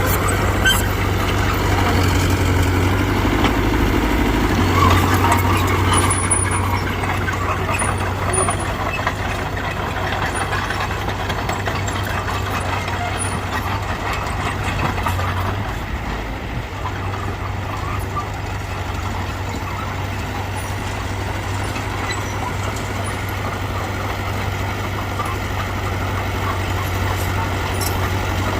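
Heavy diesel engine of earthmoving machinery running steadily under work. It is somewhat louder for roughly the first half and eases off a little after the middle.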